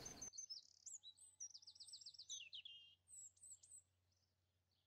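Faint songbird singing: a string of high whistled notes and a fast trill, stopping just before four seconds in.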